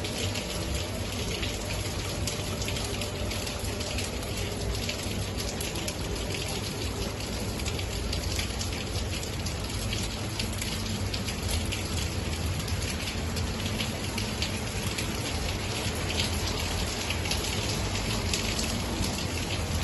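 Heavy rain falling steadily on a closed roof of aluminium pergola louvres: a constant hiss of water with a dense spatter of individual drop hits.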